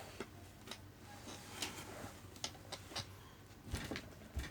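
Faint, scattered clicks and light clinks of small trinkets and the jewellery boxes being handled, with two soft low thumps near the end.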